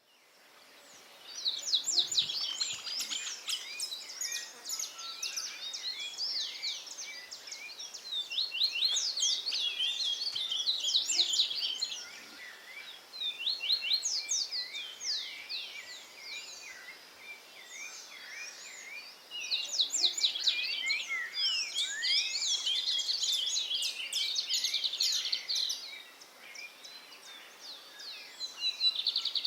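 Several songbirds singing at once, a dense chorus of rapid chirps and trills that comes in bouts with short lulls between them. It fades in over the first second or so.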